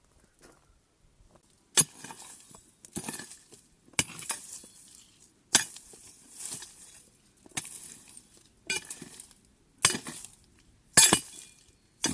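Repeated sharp clinking strikes of hard objects, about one a second, each followed by a short rattle, like brittle debris or glass being knocked or tossed.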